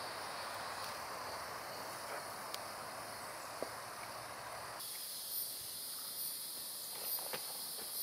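Steady chorus of insects buzzing in the woods, a high hiss that shifts abruptly about five seconds in. A few faint ticks come near the end.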